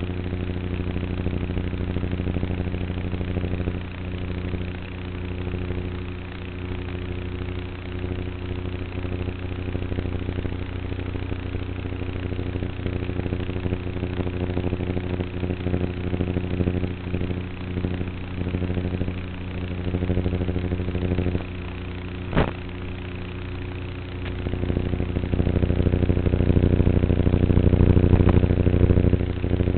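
Electric motor and propeller of an E-flite Apprentice S RC plane in flight: a steady hum with a stack of even tones, rising and falling in loudness with the throttle and louder near the end. A single sharp click about two-thirds through.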